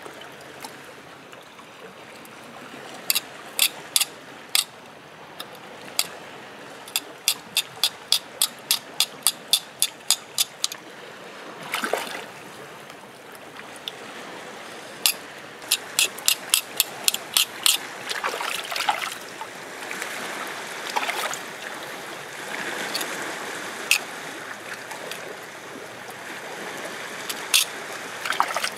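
A knife blade tapping and clicking sharply against rock as a sea cucumber is cut on a wet stone, in runs of several quick clicks about three a second. Water trickles and laps in the rock pool throughout.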